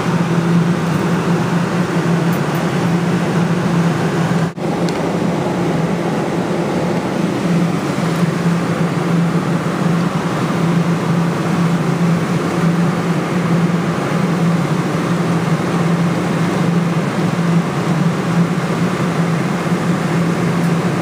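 Steady droning hum with an even hiss of machine and room noise, unbroken except for a brief dropout about four and a half seconds in.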